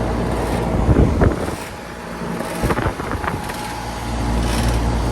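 1998 Comfortmaker AG Series central air conditioner's outdoor unit running: the compressor hums steadily under the rush of the condenser fan, with a few brief knocks about a second in and near three seconds. The owner considers the compressor on its last legs and notes high head pressure.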